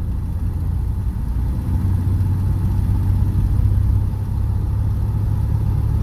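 Cabin noise of a 1937 Plymouth coupe cruising on the road: the flathead six-cylinder engine's steady low drone mixed with road and wind noise, growing a little louder about two seconds in.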